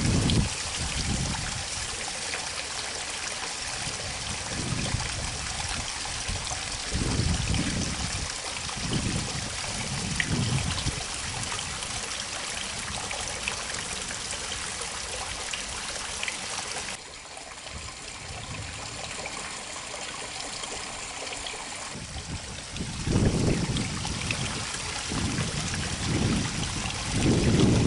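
Water from a small channel trickling and running into the river, a steady hiss, with low rumbles of wind buffeting the microphone now and then.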